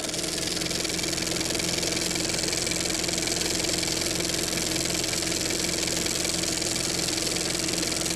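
An engine running steadily at idle, settled at an even pitch just after revving up.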